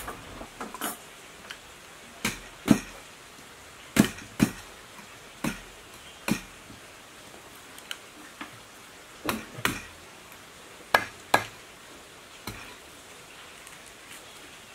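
A wooden stick knocking on the copper coil ends of an electric motor stator being rewound. About a dozen sharp knocks, mostly in pairs about half a second apart, over a steady low hiss.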